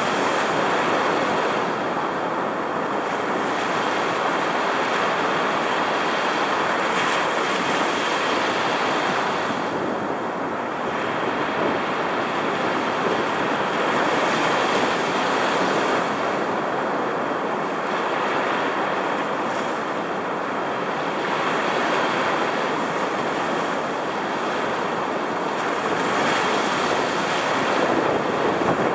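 Rough storm surf roaring as it breaks and washes up the sand at the water's edge, a continuous rush that swells and eases every six or seven seconds as each set of breakers comes in.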